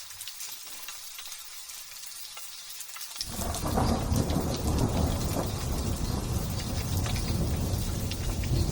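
Light drizzle hissing and pattering, then about three seconds in a long, loud rumble of thunder rolls in and keeps going over the rain.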